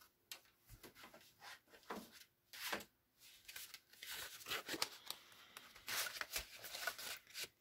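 Handling of paper craft items: rustling and small taps of cardboard and paper, a small cardboard box set down on a craft mat and then a cutting-die packet picked up and handled.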